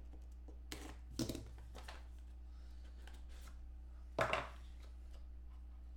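Hands handling and opening a small cardboard trading-card box: a few short scrapes and taps, the loudest about four seconds in, over a faint steady low hum.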